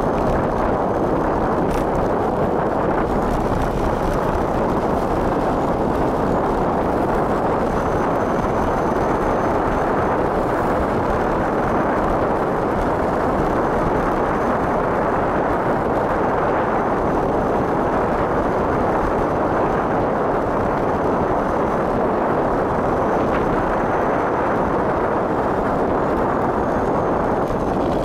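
Wind buffeting the microphone of a bicycle speeding downhill: a steady, loud rushing noise that does not let up.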